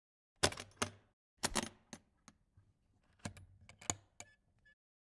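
Sharp clicks and clattering knocks of a metal-edged equipment road case being handled and its lid opened, the lighting gear and cables inside rattling. The clicks come in several quick clusters.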